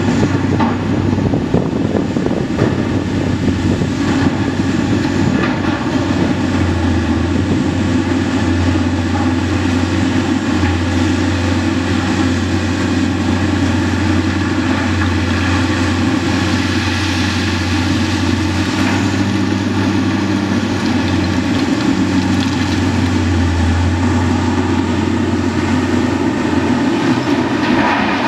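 Diesel engine of a Demag H95 hydraulic excavator running steadily under load through a digging and loading cycle. Rock clatters out of its bucket into the body of a FAUN K85.5 dump truck near the start and again near the end.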